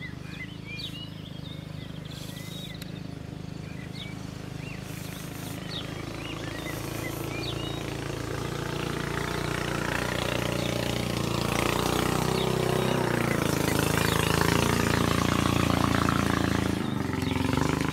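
A motor engine running steadily and growing louder through the middle, then holding, with a few light bird chirps in the first seconds.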